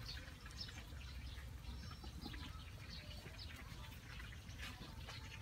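Faint, scattered bird chirps over a low steady rumble of outdoor ambience.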